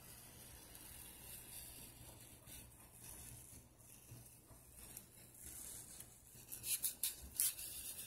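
Styrofoam block handled and rubbed against a hot-wire foam cutter, faint rustling with a few short, sharp scratchy rubs near the end. A faint low hum runs underneath.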